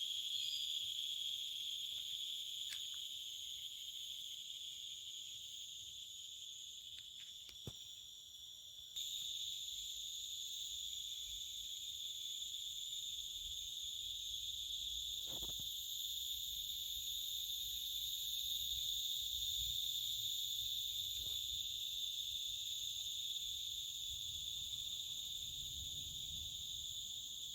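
Crickets trilling in a steady, high-pitched evening chorus. It grows suddenly louder about nine seconds in, with a few faint clicks here and there.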